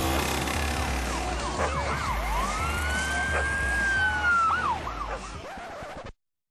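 Police siren wailing, its pitch rising and falling in repeated sweeps with one long drawn-out wail in the middle, over a low rumble. It cuts off abruptly about six seconds in, leaving silence.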